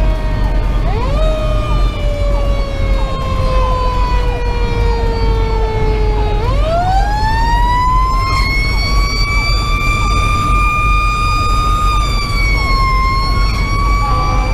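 A fire engine's Federal Q2B mechanical siren coasting slowly down in pitch, with a brief kick up about a second in. About six seconds in it is wound back up to a high, steady wail, which sags briefly near the end. Underneath is the low rumble of the truck's Detroit Series 60 diesel and the road, heard from inside the cab.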